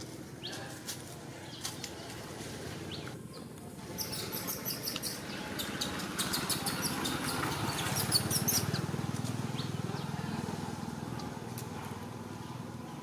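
Outdoor ambience: a steady low rumble that swells in the middle, with a run of short, high chirps or clicks partway through.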